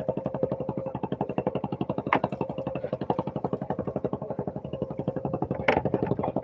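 A small fishing boat's engine running steadily, with a fast, even chugging of about ten beats a second. Two sharp knocks stand out, about two seconds in and again near the end.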